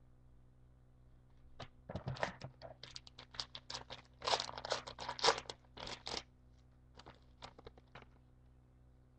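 A trading-card pack wrapper being torn open and crinkled, a dense run of crackling for about four and a half seconds, followed by a few lighter crackles.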